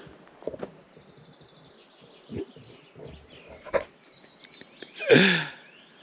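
Footsteps on an outdoor path, with faint bird chirps. About five seconds in comes a short, loud voiced sound that falls in pitch.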